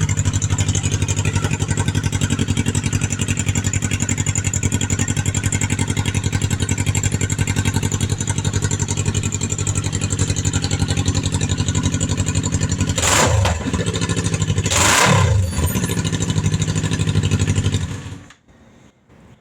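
2018 Kawasaki Ninja 400's parallel-twin engine idling steadily, blipped twice in quick succession about two thirds of the way through, then shut off near the end.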